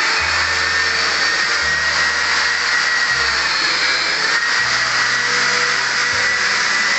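Long-handled drywall sander with a dust-extraction hose running steadily while sanding a plastered wall, a continuous motor whine with a high steady tone. Background music plays under it, with low bass notes changing every second or so.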